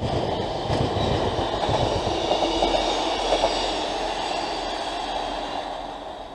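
Class 158 Express Sprinter diesel multiple unit passing and drawing away on the rails, with a run of wheel clicks near the middle. Its sound fades toward the end.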